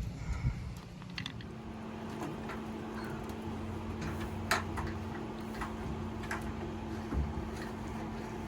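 Scattered light clicks and taps of hands working at the race car's brake master cylinder while it is topped up with brake fluid, over a steady low hum in the background.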